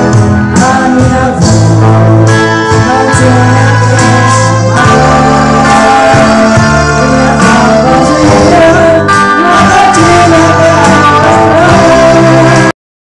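A man and a woman singing a duet into handheld microphones over accompanying music, played loud through the sound system. The sound cuts off abruptly just before the end.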